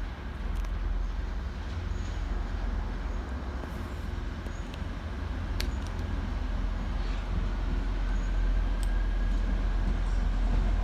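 Diesel train running with a steady low engine rumble and a few faint clicks, growing slightly louder near the end.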